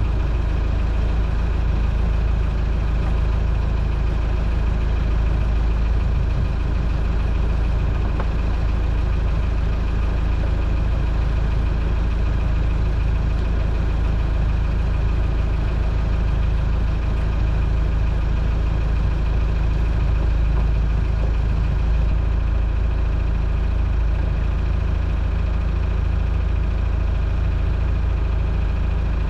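Towboat's engine idling steadily, a constant low hum with no change in speed.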